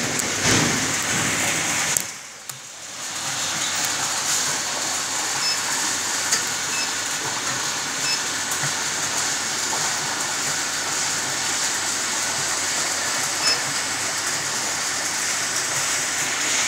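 Injection molding machine running, a steady, even mechanical din with no clear rhythm. The noise drops briefly about two seconds in.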